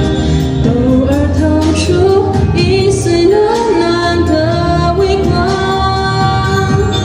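A woman singing a Mandarin pop ballad in a dry voice with no sound-card effects, the melody held in long, smoothly moving notes over a steady low accompaniment.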